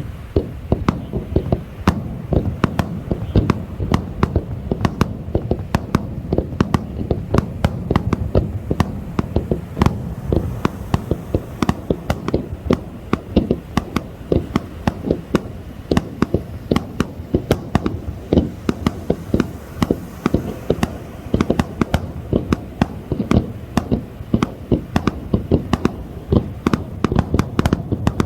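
Fireworks display: a dense, unbroken barrage of bangs and crackles, many a second, over a steady low rumble.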